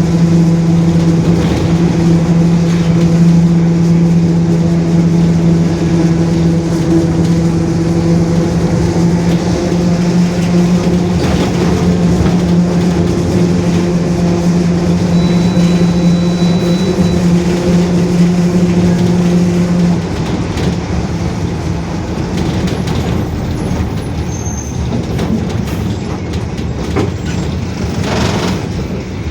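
Mercedes-Benz OF-1721 city bus under way, with a steady whining drone from its differential, which is growling. The drone stops about twenty seconds in and the bus runs on with a quieter road and body rumble. A short hiss comes near the end.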